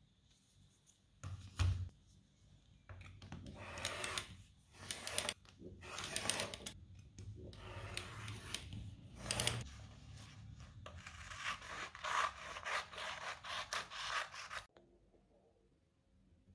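Rotary cutter slicing a paper pattern sheet along a metal ruler on a cutting mat, in a series of scraping passes over about ten seconds. A single knock comes first, as the ruler is set down on the mat.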